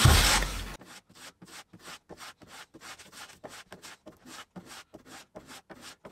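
Block plane shaving the edges of a stack of veneer sheets clamped between plywood boards: a louder stroke at the start that stops suddenly, then short, quick, quiet scraping strokes at about four a second.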